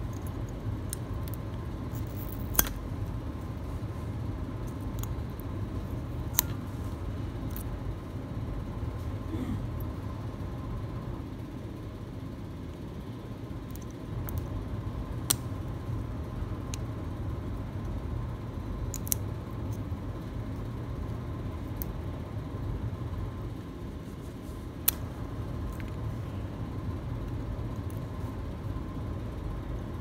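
Occasional sharp small clicks and taps of metal repair tools on an iPhone X logic board as its shield is worked off, over a steady low hum and a faint high tone.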